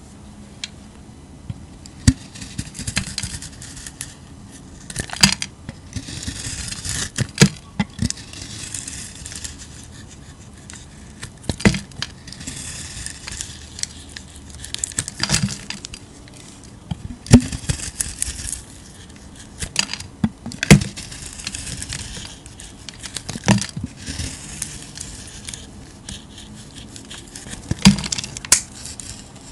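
A utility-knife blade shaving thin curls off a bar of soap with a crumbly, textured coating: a crisp, high scraping with each stroke, set off by sharp clicks every two to three seconds.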